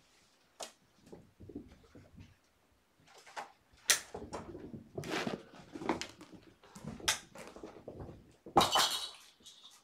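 Kittens scrambling and pouncing after a wand toy among scattered toys: a run of knocks, thumps and clatters, sparse at first and busy from about three seconds in, with the loudest burst near the end.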